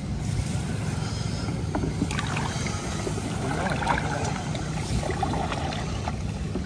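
Fish traps being lifted and emptied in shallow water: scattered small knocks and rustles over a steady low rumble.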